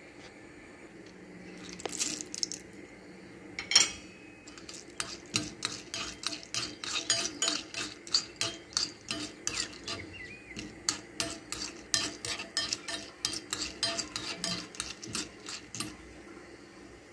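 A steel spoon stirring dried berries frying in ghee in a small non-stick pan: a quick run of sharp clicks and scrapes of spoon and berries against the pan, a few each second, from about four seconds in until near the end.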